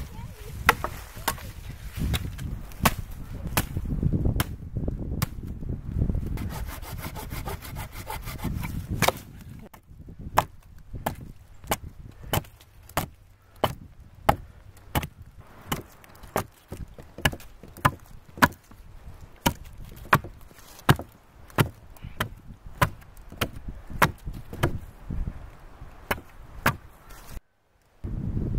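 A hatchet chopping through a small green sapling near its base, strike after strike, with a quick flurry of blows partway through, then a steady pace of about two chops a second.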